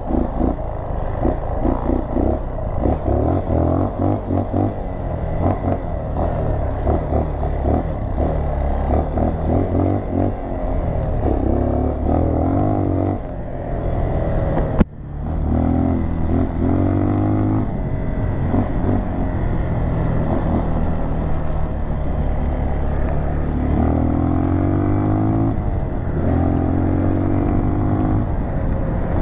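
Dual-sport motorcycle engine running under way, its pitch climbing repeatedly as the bike accelerates and dropping back at each gear change. A brief sharp break in the sound comes about halfway through.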